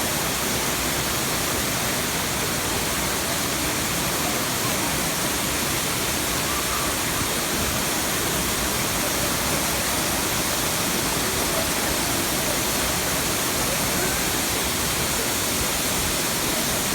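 A waterfall rushing: a steady, unbroken wash of water noise.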